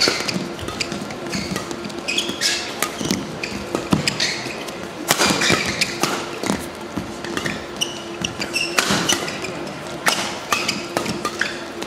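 Badminton doubles rally: rackets hitting the shuttlecock in a fast exchange, mixed with shoes squeaking and stamping on the court surface.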